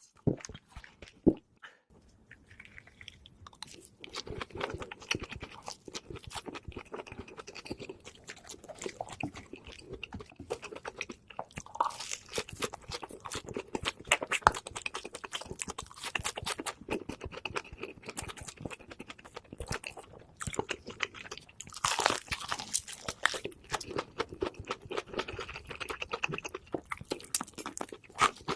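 Close-miked chewing and biting of food: a dense, continuous run of small mouth clicks and crackles that starts about two seconds in.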